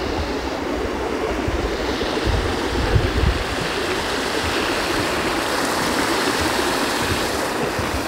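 Shallow stream rushing and splashing over stones below a footbridge, a steady watery rush. Low rumbles of wind on the microphone about two to three seconds in.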